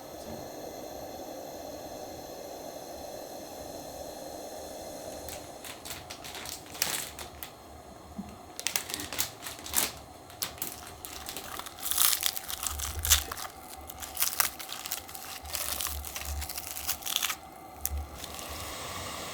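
Steady low hum at first, then crinkling and rustling with many sharp clicks and a few soft thumps: camping gear and packaging being handled and unpacked.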